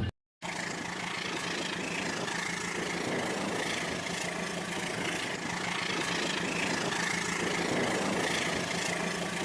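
A battery-powered toy train's small electric motor running steadily as it travels along its track, giving an even mechanical hum.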